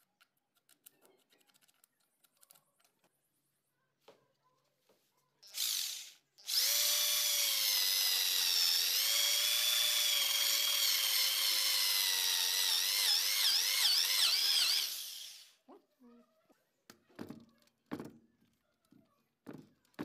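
Electric drill with a spade bit boring into wood for a door lock. A brief burst about five and a half seconds in, then a steady whine for about nine seconds, its pitch dipping once and wavering toward the end. A few light knocks follow once it stops.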